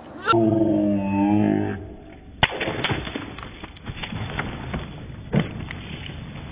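A long, deep, wavering voice-like cry lasting about a second and a half, with the sound turning muffled. About two and a half seconds in comes a sharp slap as a person lands on a giant water-filled balloon, followed by scattered smaller knocks.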